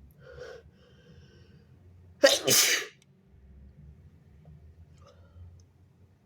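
A person sneezing once, a loud, sharp burst a little over two seconds in, after a fainter short breathy sound near the start.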